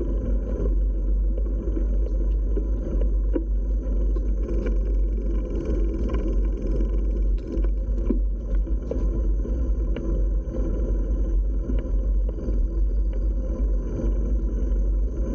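Wind buffeting the microphone of a camera on a moving B'Twin Riverside 900 hybrid bicycle, over the steady rumble of its 700x38c tyres rolling on a paved path, with a few faint clicks.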